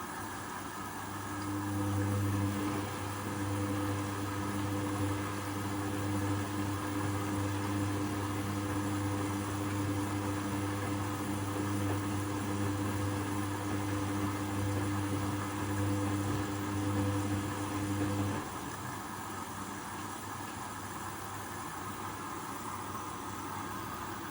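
Hoover Custom Vision washing machine running its first rinse: a low steady electrical hum over a continuous hiss. The hum starts about a second in and cuts off abruptly about six seconds before the end, leaving the hiss.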